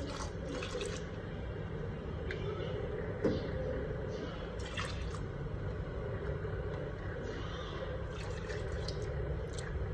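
Custard mix being poured little by little into hot milk in a pan and stirred in with a spoon: faint liquid sloshing and a few light scrapes and taps of the spoon against the pan, over a steady low hiss.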